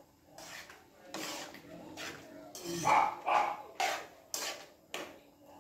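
A metal ladle stirring and clinking against a metal wok of soup, with a dog barking a few times in short sharp barks, loudest about three seconds in.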